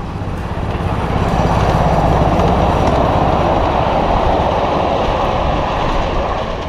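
A 7¼-inch gauge ride-on miniature train rolling past close by: steel wheels running on the rails with a steady rolling rumble. It grows louder about a second in as the cars go by and eases off near the end.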